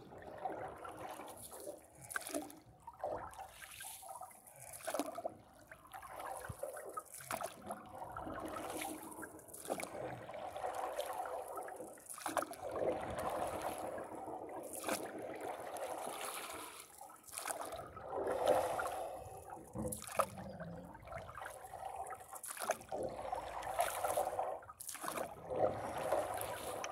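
Paddle strokes through lake water, a splash every second or two, with water trickling and lapping against a paddleboard's bow.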